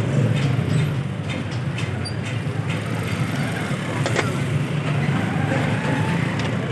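Steady low rumble of street traffic and engines, with a few light clicks about one, two and four seconds in.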